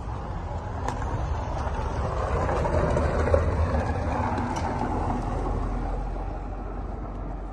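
A car driving past on an unpaved dirt road, its engine and tyre noise growing louder to a peak about three seconds in, then fading as it moves away.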